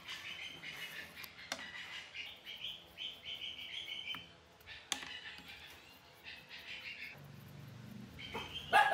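Rusted screws squeaking and grating as a screwdriver turns them out of the blower's cast cover, in repeated short stretches, with a couple of sharp metal clicks; a louder scrape or knock comes at the very end.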